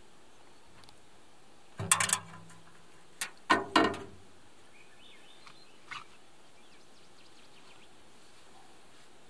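A few loud knocks over a faint outdoor background: a cluster about two seconds in, then a sharp click and two more heavy knocks around three and a half to four seconds, with a small tap near six seconds.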